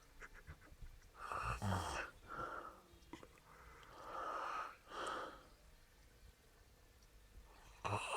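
A sleeping pet snoring: about four noisy snoring breaths in the first five seconds, then a couple of seconds of quiet. A voice starts right at the end.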